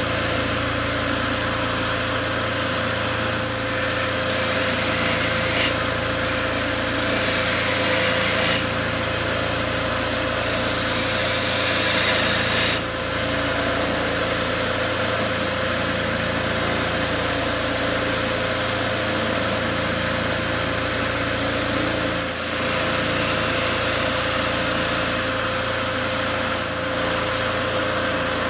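Electric wood lathe running with a steady motor hum while a hand-held lathe knife cuts the spinning wooden spindle. The cutting hiss rises and falls over several passes.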